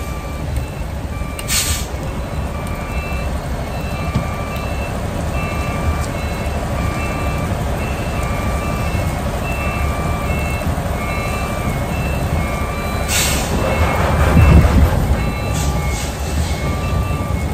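A semi-trailer truck's reversing alarm beeps in a steady repeating pattern over the running diesel engine and heavy rain as the truck backs up a slope. Short hisses come about a second and a half in and again about 13 s in, and the engine gets louder around 14 s in.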